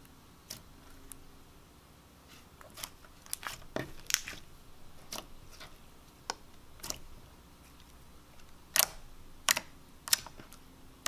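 Thick white slime being pressed and squished by fingers, giving scattered small clicks and pops, with three louder pops in quick succession near the end.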